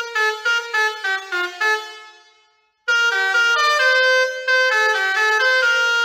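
Basuri 4.0 musical air horn playing a tune of quick, stepped notes that falls and fades out. After a brief gap, another tune starts a little under three seconds in.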